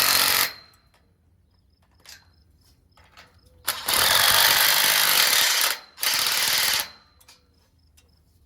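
Power impact driver running in loud bursts as it tightens the bolts on a cross connector. One burst stops about half a second in, and two more follow a few seconds later, a long one and then a short one. Each burst trails off with a brief whine as the motor spins down.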